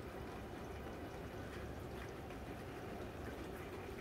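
Steady rainfall: an even hiss of rain with faint scattered drop ticks.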